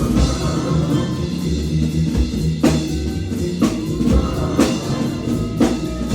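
Live band playing an instrumental stretch with no vocals: drum kit and a heavy bass line. From about two and a half seconds in, a hard drum hit lands about once a second.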